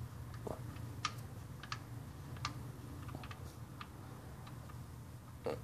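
Scattered light clicks, about one or two a second, as the oil pan drain plug of a 2013 Jeep Wrangler is slowly unscrewed, over a steady low hum.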